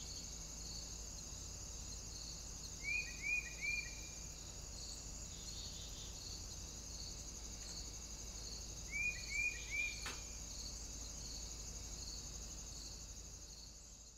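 Crickets chirring steadily, with regular chirps about every two-thirds of a second. Twice a bird calls three quick notes, each rising then falling. There is one sharp click about ten seconds in, and the sound fades out at the very end.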